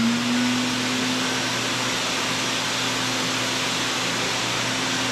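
Lincoln Electric Mini Fume X-Tractor fume extractor, its brushed fan motor just switched on: the hum rises and settles at the very start, then it runs steadily on its low setting, a loud even rush of air with a steady hum.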